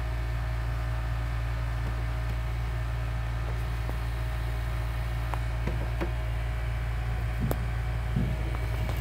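Steady low machine hum with a hiss over it. A few faint clicks and soft rustles come in the second half.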